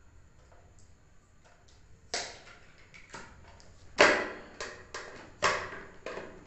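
A clear plastic display box being handled and pulled apart, with the cardboard insert sliding out. A few faint ticks come first, then from about two seconds in a run of sharp plastic clacks and rattles, two of them louder than the rest.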